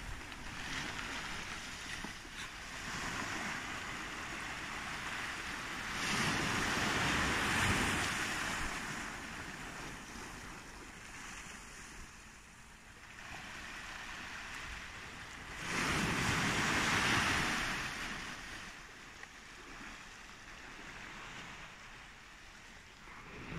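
Small waves breaking and washing up a sandy beach, with two louder surges of surf about six and sixteen seconds in.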